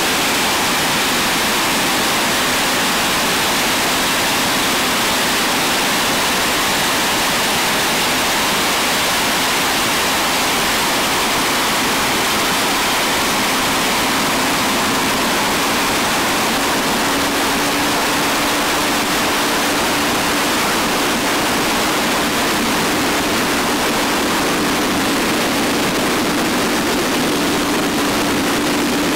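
Jet funny car's turbine engine running at the start line: a loud, steady rushing roar, with a low hum that rises slightly about halfway through.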